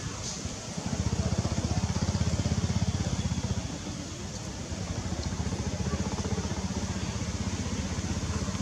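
A small engine running steadily, a low rapid pulsing that comes in about a second in and eases slightly around the middle.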